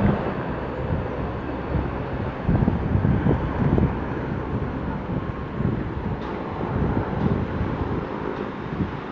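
McDonnell Douglas MD-82 jetliner rolling out after touchdown and braking heavily, its rear-mounted Pratt & Whitney JT8D engines giving a steady jet rush. Gusts of wind buffet the microphone, strongest a few seconds in.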